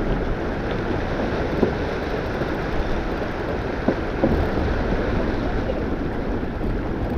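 Steady wind noise on the microphone and water rushing along the hull of a small sailing keelboat. A few faint knocks come around the middle.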